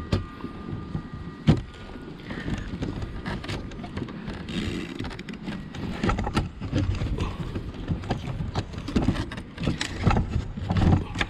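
Side cutters working at a metal crimp on a fuel pump's fuel line: irregular clicks, snips and scraping of tool on metal and plastic, with handling of the part.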